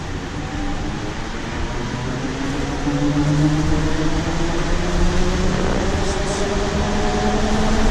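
The electric traction motor of a 2016 Nova Bus LFSe, a TM4 motor, whining as the bus accelerates, heard from inside the bus. Several tones rise steadily in pitch and grow louder over steady road noise.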